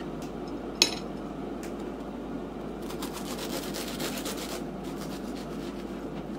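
Serrated bread knife sawing through a thick sandwich: a quick run of short rasping strokes about three seconds in. A single sharp click comes just before the first second, over a steady low hum.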